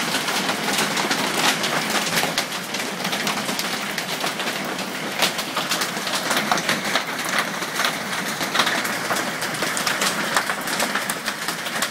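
Hailstones pelting a roof and the ground in a dense, steady clatter of many sharp hits.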